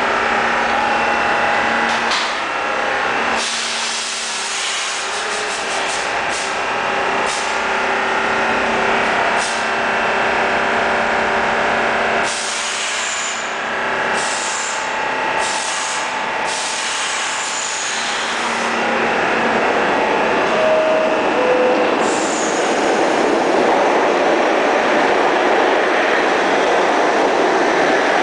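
R68 subway train standing in the station with a steady hum from its equipment and scattered clanks and clicks. About two-thirds of the way through, a two-note falling door chime sounds. The doors close and the train starts to pull out, its motors and wheels growing louder toward the end.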